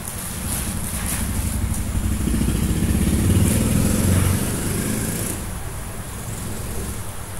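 A motor vehicle engine passing by: a low rumble that grows louder to a peak about three to four seconds in, then fades away.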